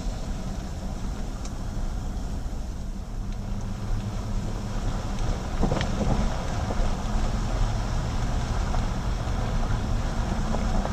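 Steady vehicle rumble from a Jeep Grand Cherokee driving along, engine and tyre noise as heard in the cabin, with a sharp knock a little past halfway.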